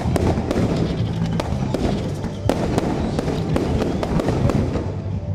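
Fireworks display: a rapid run of sharp bangs and crackle from shells bursting overhead, several a second, with music playing underneath.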